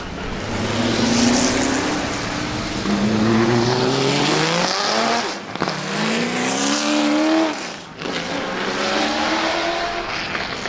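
Jaguar XJR-15's 6.0-litre naturally aspirated V12 accelerating hard, its pitch climbing in three long pulls with brief dips for gear changes near the middle and about eight seconds in.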